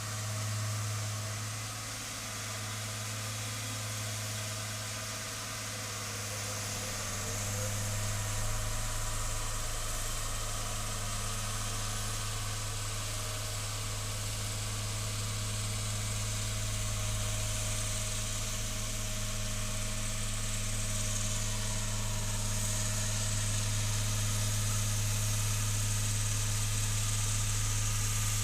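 Engine of an old road roller running steadily with a low, even hum, a little louder from about seven seconds in.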